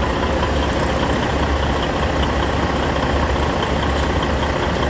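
Semi-truck diesel engine idling, a steady low drone.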